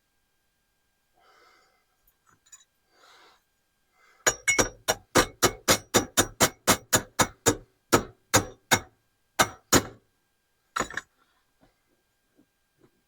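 Hammer striking metal in a quick run of about twenty blows at roughly four a second, with a slight ring, then one more pair of strikes a second later.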